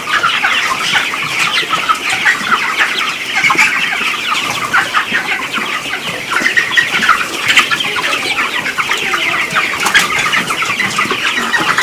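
A large flock of young broiler chickens peeping and cheeping in a poultry house: a dense, continuous chorus of short high calls overlapping with no break.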